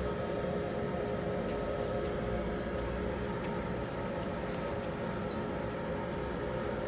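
A steady background hum, like a fan or machine running, with two faint, brief high chirps about two and a half seconds apart.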